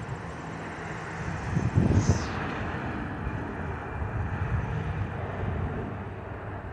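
Airbus A330-200's twin Pratt & Whitney PW4000 turbofans giving a steady jet roar as it passes high overhead. Wind buffets the microphone in gusts, strongest about two seconds in.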